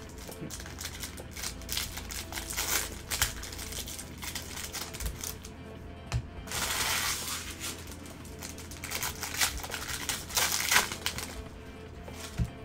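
Baseball card packs being handled and opened: quick clicks and snaps of cards and packaging, with a longer crinkling rustle of wrapper about seven seconds in and another shorter one near the end. Background music plays under it.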